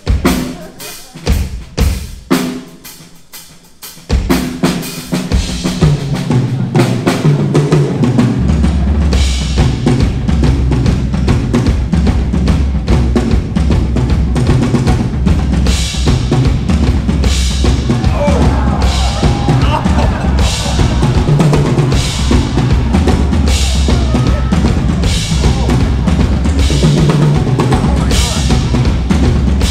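Live stage-show music led by a drum kit: a few separate sharp drum hits open it, then the full band comes in about four seconds in and runs on with a heavy, steady bass line and busy percussion.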